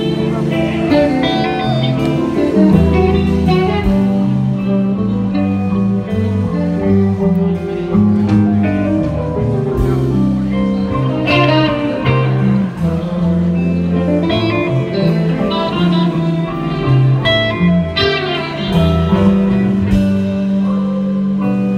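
Live rock band playing: electric bass, two electric guitars and drums.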